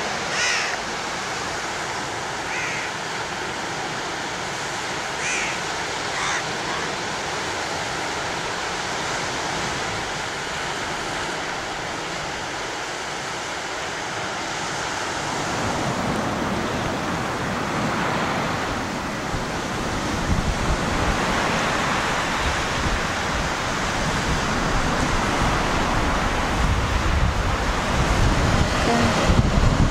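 Small sea waves breaking and washing up a sandy beach, a steady wash, with a few brief high chirps in the first several seconds. From about halfway, wind buffets the microphone, adding a low rumble that grows louder toward the end.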